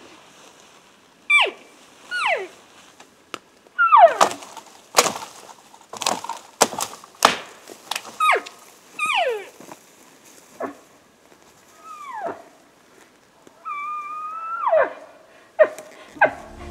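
Elk calls blown on a hunter's call tube: a string of short squealing calls that fall steeply in pitch, and one longer call about 14 s in that holds its note before dropping. Between the calls come sharp cracks and snaps, with branches being broken and raked.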